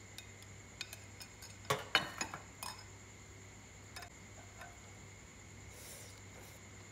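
A metal spoon clinking and scraping against a glass soup bowl and dishes, in scattered clinks with a quick cluster about two seconds in.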